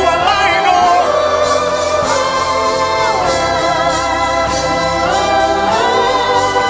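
Gospel worship music: voices singing long held, gliding notes over steady instrumental accompaniment.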